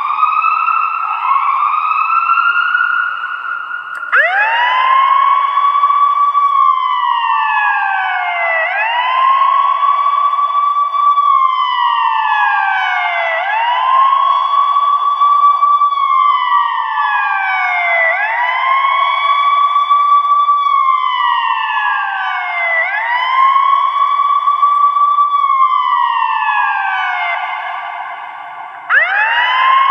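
Ambulance siren sounding. For the first few seconds it gives quick rising sweeps about once a second, then switches abruptly to a slow wail, each cycle rising fast, holding high and sliding down over about four seconds. Near the end the wail cuts off and starts again abruptly.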